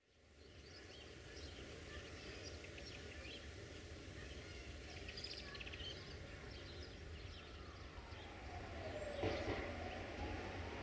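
A steady low rumble with scattered bird chirps. Near the end a tone slides down and then climbs again, with a sharp knock about nine seconds in.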